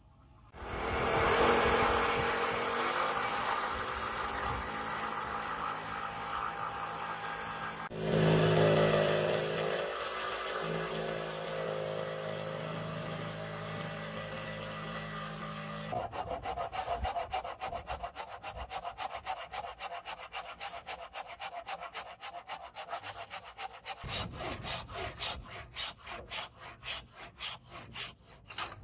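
Electric jigsaw running and cutting through a wooden board. About halfway through it gives way to hand-sawing wood with a hacksaw: a rapid, even rhythm of back-and-forth rasping strokes.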